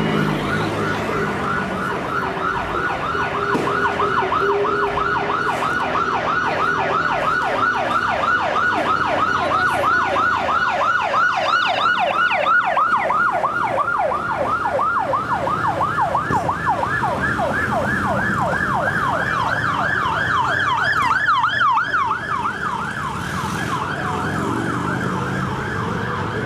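Police siren sounding in rapid yelp mode, its pitch sweeping up and down several times a second without a break.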